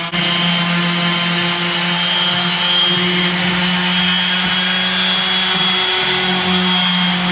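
Steady drone of a small motor running at constant speed, a low hum with a thin high whine over it.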